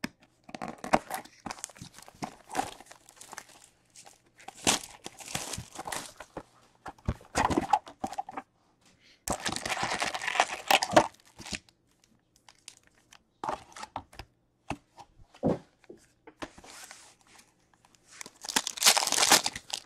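Plastic shrink-wrap on a card box slit with a box cutter and torn off, then the cardboard lid opened and the foil card packs pulled out and stacked: irregular crinkling and tearing rustles, loudest about halfway through and again near the end.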